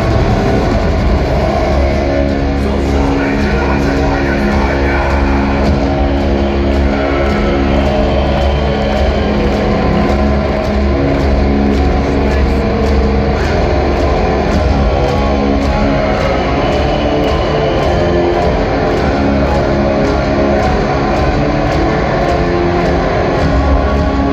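Blackened death metal band playing live through an arena PA: heavily distorted guitars hold long low chords over heavy bass, with regular drum and cymbal hits a little under twice a second.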